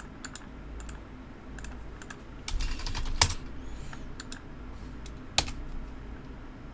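Computer keyboard keys clicking in scattered, irregular keystrokes, with a louder clack about three seconds in and another sharp one about five and a half seconds in.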